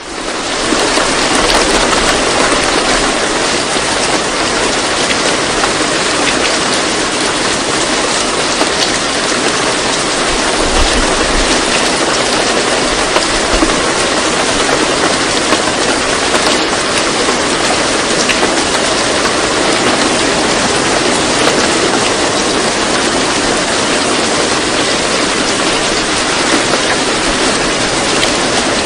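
Steady, dense rain noise from a rain sound track, fading in within the first second and then holding constant.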